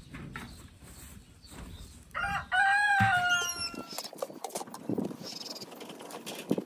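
A rooster crowing once, about two seconds in, one long held call of about a second and a half. Low wind buffeting the microphone comes before it.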